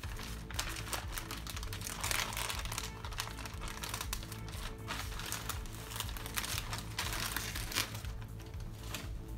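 Plastic sheet crinkling in several rustling bursts as it is smoothed down by hand and peeled back from a slab of set guava paste, over background music.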